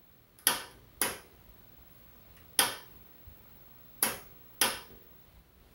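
Pattern generator's selector switch clicking as test patterns are stepped through: five sharp clicks, two close together, one alone, then two more close together.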